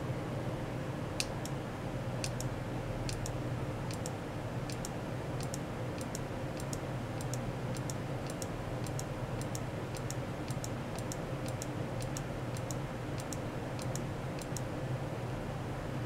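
Computer mouse button clicked over and over, starting about a second in, at roughly two clicks a second; each click is a quick press-and-release pair. A steady low hum runs underneath.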